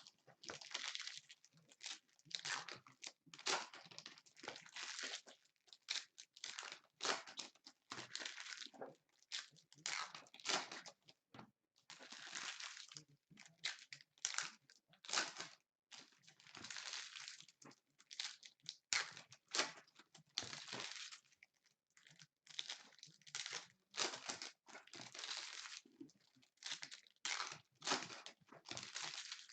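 Basketball trading card packs being opened: plastic pack wrappers crinkling and tearing in irregular rustling bursts, with brief pauses between.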